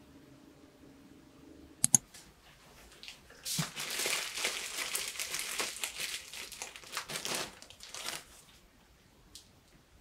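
Thin plastic bread bag crinkling for about five seconds as it is opened and thick slices of bread are pulled out. Two sharp clicks come just before, about two seconds in.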